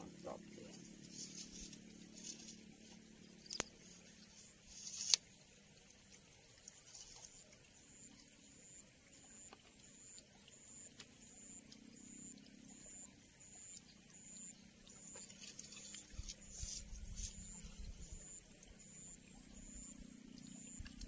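A steady, high-pitched chorus of insects, with a regular pulse running through it in the second half. Two short sharp clicks come a second and a half apart.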